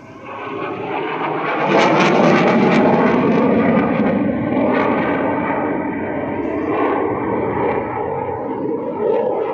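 Jet aircraft flying past, its engine noise swelling over about two seconds to a loud, crackling rush that holds.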